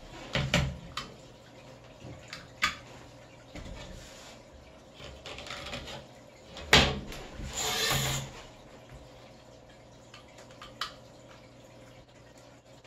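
Handling noise from a window-screen frame and its mesh: a few sharp knocks and taps against the frame and table, the loudest about seven seconds in, with short stretches of rustling, scraping noise as the excess screen mesh is trimmed along the edge with a razor blade.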